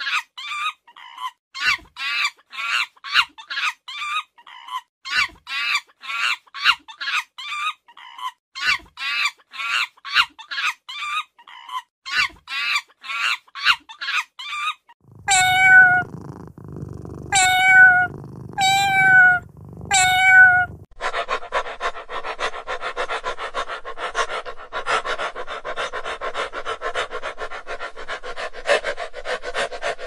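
Rapid high squeaky chirps from a young monkey, about two or three a second, for the first half. Then a kitten meows four times, each meow about a second long. Then a dog whines and pants without pause to the end.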